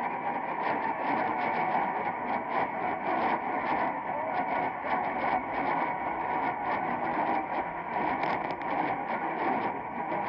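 AM radio tuned to 1450 kHz hissing and crackling with lightning static: dense, irregular crashes several times a second over steady noise, with a weak station faintly underneath.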